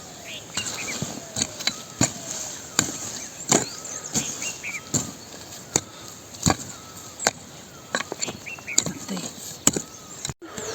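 Hand hoe striking soil in a steady rhythm, about one blow every three quarters of a second, as potato plants are hoed and earthed up. Birds chirp faintly between the blows.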